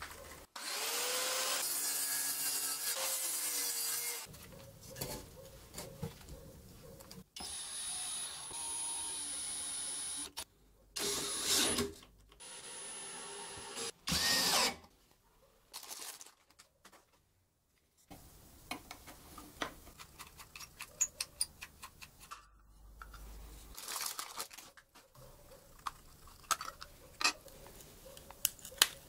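Large angle grinder switched on, its motor spinning up and running steadily for a few seconds. Then a drill drives screws through chipboard into the steel frame in several short runs with a high whine, and finally a string of small plastic clicks as a wall switch is taken apart with a screwdriver.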